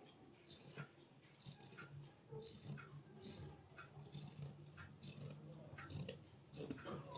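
Large steel tailor's shears cutting through lining fabric along a curved chalk line, each closing of the blades a faint, crisp snip, about two to three a second.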